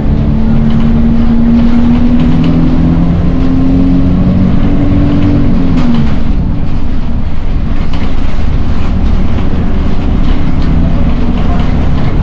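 City bus running, heard from inside the passenger cabin: a loud steady rumble with a droning whine that rises slightly and then drops in pitch about five to six seconds in.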